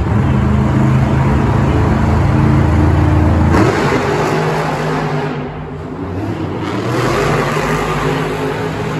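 Monster truck engines, supercharged V8s, running hard and loud for the first three and a half seconds. The sound then drops off abruptly, eases, and builds again near the end as a truck throttles up.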